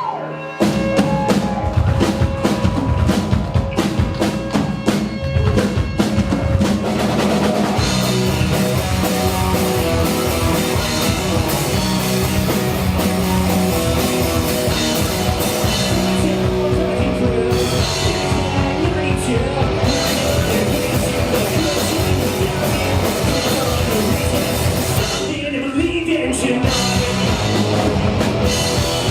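Live rock band playing a song, drum kit and electric guitar, kicking in about half a second in after a brief gap. The sound thins briefly about 25 seconds in before the full band comes back.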